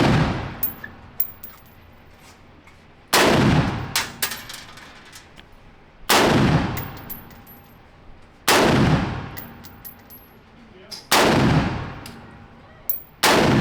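Handgun shots fired one at a time, about every two and a half to three seconds, five in all, each with a long echoing tail. Light metallic clinks follow between the shots.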